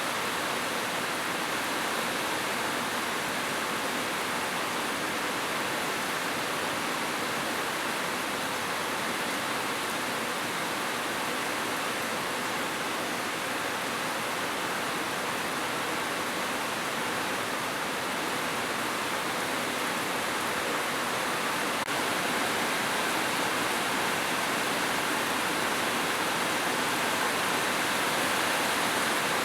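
Steady rushing water, an even continuous hiss with no distinct events, growing slightly louder about three quarters of the way through.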